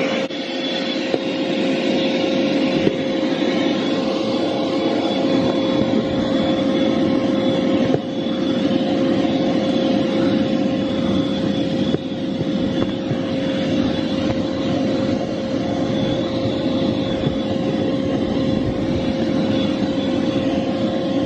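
Vacuum cleaner running steadily with a constant high whine as its nozzle is worked over carpeted car floor mats.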